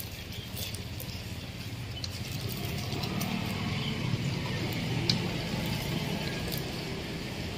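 Duck pieces deep-frying in a large pot of hot oil, sizzling steadily while a wire spider strainer stirs them, with a sharp click about five seconds in. A low steady rumble runs underneath.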